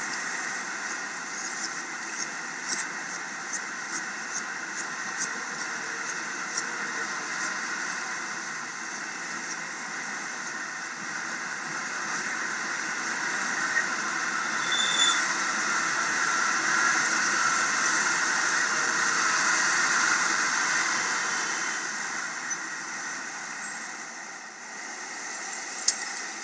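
A sustained mechanical squeal over a steady noise. A run of light ticks, about two a second, comes in the first several seconds. The sound swells from about the middle, fades a few seconds before the end, and ends with a couple of sharp clicks.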